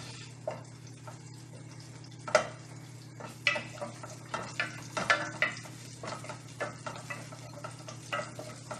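A wooden spatula stirring and scraping whole dry spices (cardamom pods, cloves, cinnamon stick) frying in a little oil in an aluminium pot, in irregular strokes, the loudest scrapes about two and a half and five seconds in. A steady low hum runs underneath.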